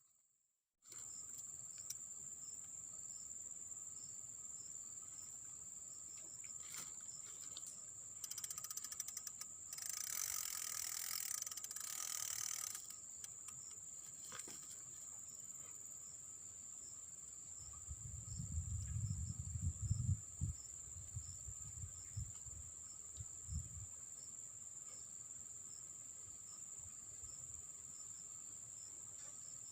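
Crickets or other insects keep up a steady high drone throughout. Between about 8 and 13 seconds in there is a noisy rattling stretch, and from about 18 to 24 seconds a run of low thumps.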